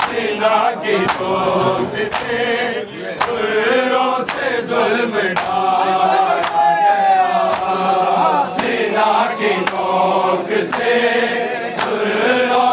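Group of men chanting a noha, a Shia lament, in unison, with sharp slaps about twice a second from hands beating chests (matam) in time with the chant.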